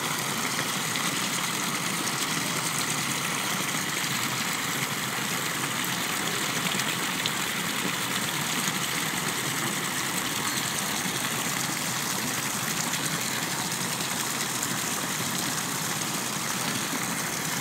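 Fountain water pouring from its spouts and splashing steadily into the basin below, an even hiss that does not change.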